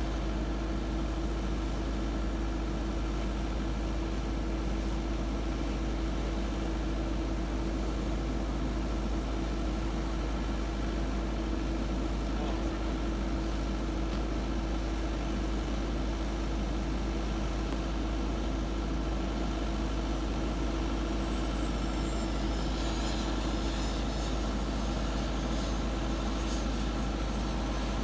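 Steady mechanical drone with a constant humming tone and low rumble, as of engines or auxiliary power units running on an airport apron; a faint high jet whine builds over the last few seconds.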